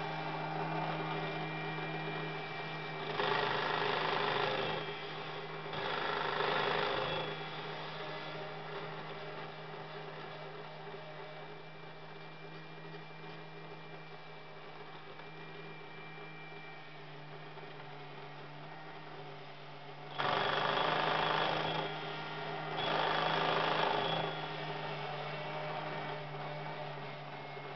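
Battery-operated tin toy bear at its "I May Look Busy" desk: its small motor and gears run with a steady whirring hum as it writes and lifts the telephone receiver. The toy telephone's bell rings in two pairs of rings, about 3 and 6 seconds in and again about 20 and 23 seconds in.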